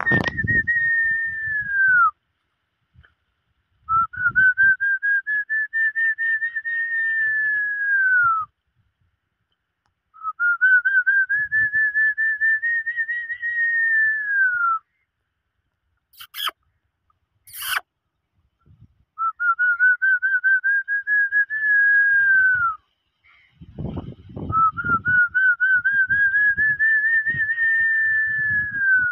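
Whistling: five long, high, quickly warbling notes, each about four to five seconds, rising slightly and falling off at the end, with pauses between. A couple of sharp clicks in the gap near the middle.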